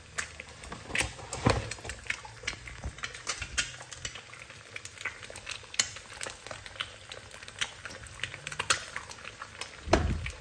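Two eggs frying in oil in a non-stick frying pan, the oil crackling and spitting in irregular small pops. Two louder knocks stand out, about a second and a half in and near the end.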